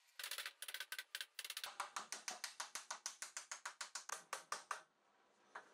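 Mallet knocking dowelled white oak boards together during a panel glue-up: a fast run of sharp wooden knocks that pauses briefly near the end, then a few more.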